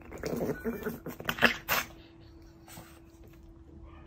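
Short snapping and scuffling noises as a small dog bites at a rubber shark hand puppet, a few sharp clicks among them, over a faint steady hum.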